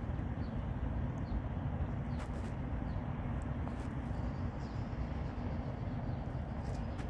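Outdoor ambience: a steady low rumble, with faint short high peeps every second or so and a few sharp crackles.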